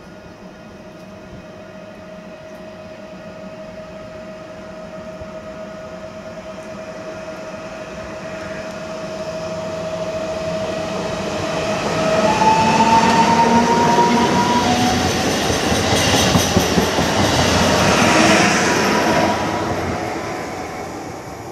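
Koleje Śląskie EN76 (PESA Elf) electric multiple unit approaching and passing close by. A steady electric whine grows louder as it nears, then the rush and rattle of its wheels on the rails is loudest from about twelve to nineteen seconds in, fading near the end.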